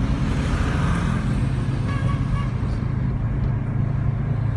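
Car cabin noise while driving: the engine hum and road noise heard from inside the moving car.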